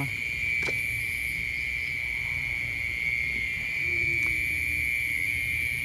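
Steady, high-pitched chirring of night insects such as crickets, unbroken throughout, with a faint short low call about four seconds in.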